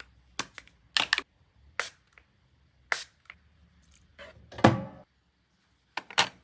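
A series of light knocks and clicks of items being handled and set down on a hard surface, about nine in all, with one louder, fuller thunk a little under five seconds in.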